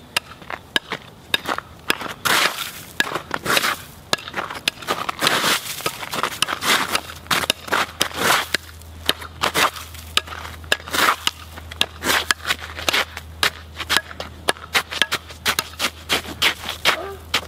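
Homemade wooden pickaxe chopping into a patch of ice: repeated sharp strikes, about two a second and unevenly spaced, with the crunch and crackle of ice breaking up and scraping.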